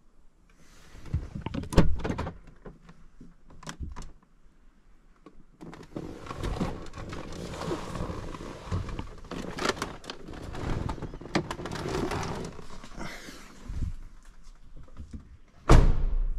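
A person getting out of a Mercedes-Benz S-Class W221: irregular rustling, knocks and clicks of movement in the driver's seat, then the car door shut with a heavy thump about a second before the end.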